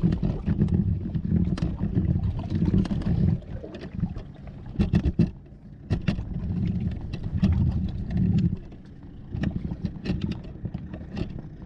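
Hand-cranked Freewheeler boat drive being cranked hard on an inflatable dinghy: low rumbling that comes and goes in surges of a few seconds, with scattered sharp clicks and knocks from the crank and gearing.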